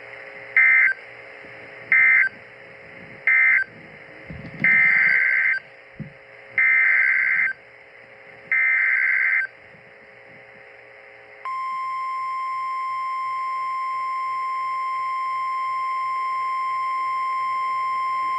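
Emergency Alert System data tones: three short bursts of warbling digital code that end the severe thunderstorm warning, then three longer bursts of header code for the next alert. About eleven seconds in, a steady single-pitch alert tone starts and holds; this is the weather radio warning alarm that comes before the flash flood warning is read.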